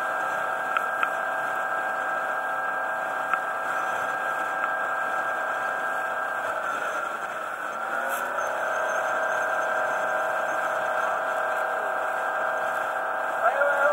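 A boat's motor running steadily under way with a high whine; around the middle its pitch sags and wavers, then settles again. Near the end a second engine note comes in, rising and falling.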